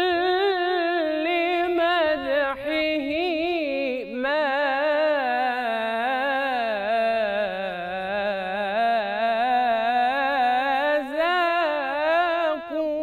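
A young man's solo voice singing Egyptian religious inshad (an ibtihal), unaccompanied: one long melismatic phrase with wavering, ornamented pitch, broken only by a couple of short breaths in the first few seconds.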